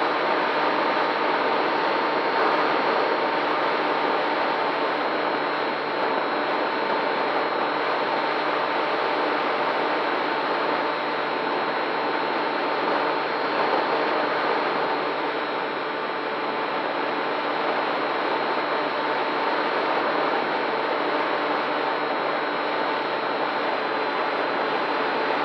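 FPV drone's motors and propellers, heard from the onboard camera as a steady whirring hiss with a faint constant whine mixed into rushing air.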